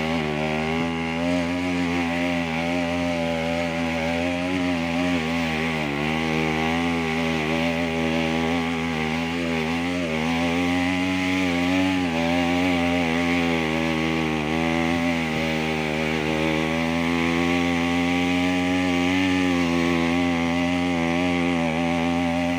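Small motorcycle engine running steadily, its pitch rising and falling slightly throughout.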